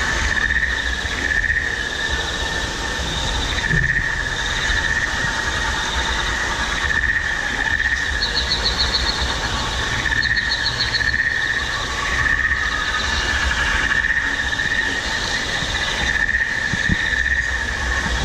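Waterfalls splashing steadily into a pond, under a shrill insect-like drone that swells and fades every second or two. Short bursts of rapid trilling chirps come over it now and then.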